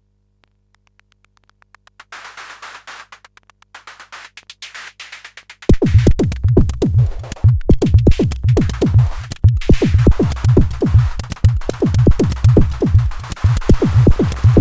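Korg volca drum synthesizer playing a sequenced electronic drum pattern. Faint quick clicks build up, a brighter, hissy percussion layer comes in about two seconds in, and about six seconds in a deep drum, each hit falling in pitch, starts pounding out a fast, steady rhythm.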